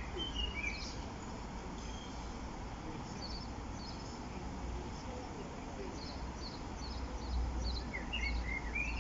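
Small birds chirping over steady outdoor background noise with a low rumble. The chirps come in clusters near the start and again near the end.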